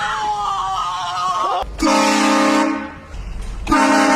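Train horn sounding two long, steady chord blasts, the first about a second and a half in, the second near the end.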